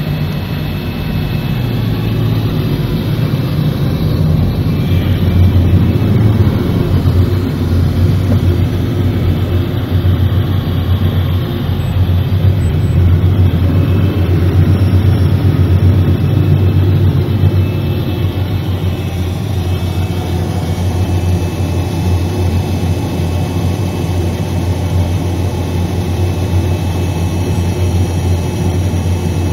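Steady low engine drone, a little louder midway, from the engines of vehicles and aircraft on an airport de-icing pad, heard from inside a vehicle's cab.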